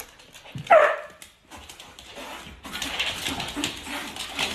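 A husky gives one short, loud bark that falls in pitch, about a second in.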